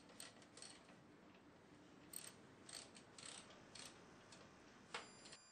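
Faint socket ratchet clicking in short, irregular strokes as a fitting is turned, with one sharper click near the end.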